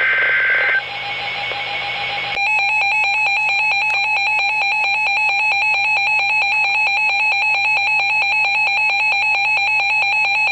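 Emergency Alert System weather-alert tones from a NOAA weather radio. A brief buzz of data tones gives way to a steady tone, then about two seconds in an electronic alarm starts beeping rapidly in alternating high and low tones, signalling an incoming severe thunderstorm warning.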